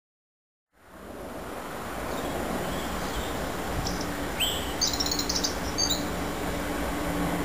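Steady distant drone of an approaching Class 66 diesel locomotive, an EMD two-stroke V12, with a low steady hum under it, fading in within the first second. A few short bird chirps come about halfway through.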